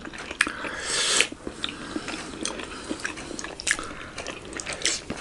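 Close-miked eating of large, juicy steamed momo dumplings: soft wet biting and chewing sounds with small scattered clicks, and a short hiss about a second in.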